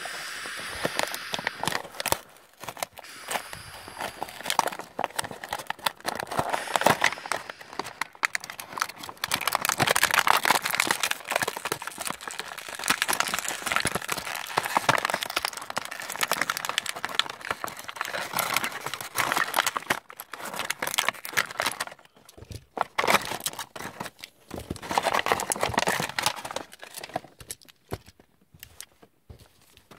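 Clear plastic blister packaging crinkling and crackling in long stretches as the toy is pried and pulled out of its bubble, falling quiet briefly a little past two-thirds of the way and again near the end.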